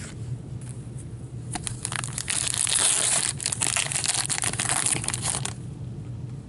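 A pack of O-Pee-Chee hockey cards being torn open by hand, its wrapper crinkling and crackling for about four seconds from about a second and a half in.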